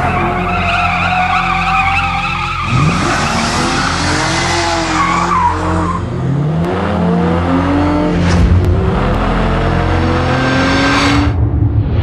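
BMW 1 Series M Coupé drifting: its twin-turbocharged inline-six revs up and down over and over while the spinning rear tyres squeal, the squeal strongest in the first half.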